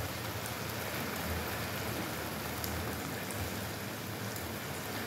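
Small shrimp sizzling steadily as they fry in a nonstick pan, stirred with a spatula.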